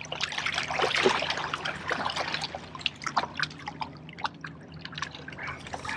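Small waves lapping and splashing against the rocks at the water's edge, with an irregular patter of drips and little splashes that is busiest in the first second.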